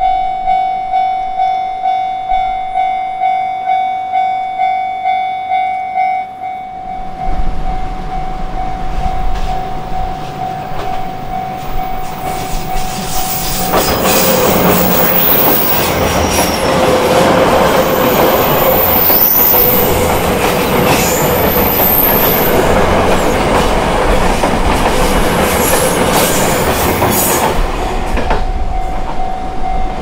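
A Japanese level-crossing warning bell ringing in a steady clanging rhythm, about two strokes a second, as an electric train approaches. The train passes from about 14 s to 28 s with wheels clattering over the rail joints, drowning out the bell, and the bell is heard again near the end.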